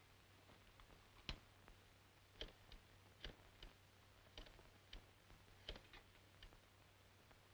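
Near silence with a low steady hum and a dozen faint, irregular clicks from a telephone being handled and dialed.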